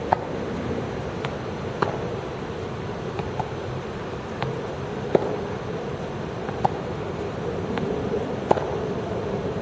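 Tennis balls struck by rackets and bouncing on the court during a rally drill: sharp single pops every second or two, about five loud ones with fainter ticks between, over a steady background hum.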